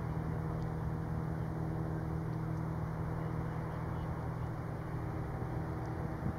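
Tugboat's diesel engines running steadily, a low, even hum that holds one pitch throughout.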